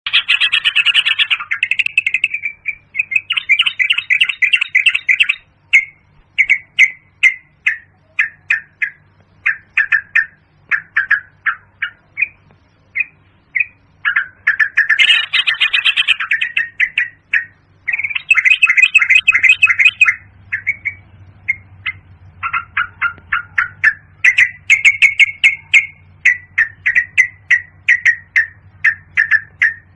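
Yellow-vented bulbul calling: quick runs of short, bubbly chirps, breaking into louder, denser chattering bouts about a second in, around the middle and again a few seconds later.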